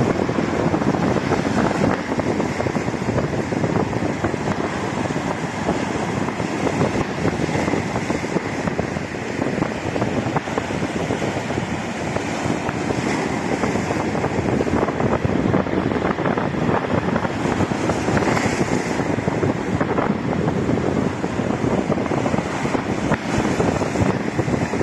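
Rough sea surf breaking and washing over concrete rubble at the shoreline, a steady unbroken rush, with strong wind buffeting the microphone.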